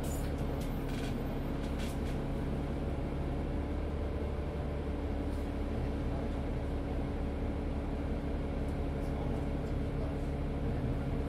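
Isuzu Citiport 18 articulated city bus heard from on board: the engine runs at a steady, even hum with no revving. A few short clicks come in the first two seconds.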